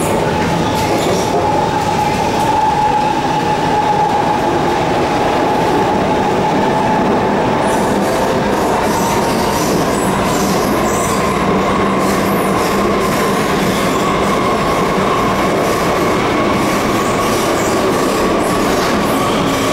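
Interior running noise of an SMRT R151 Alstom Movia metro train on the move: wheels rolling on the rails, with a steady whine from its MITRAC traction equipment that climbs slowly in pitch over the second half as the train gathers speed. Faint clicks and rattles come through from about the middle on.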